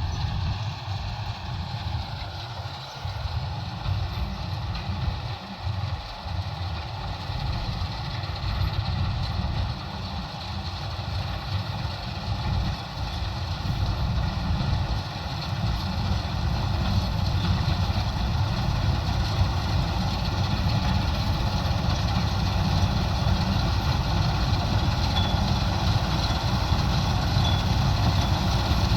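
Combine harvester running steadily: a continuous low engine rumble with a steady whine from its machinery above it, growing gradually louder.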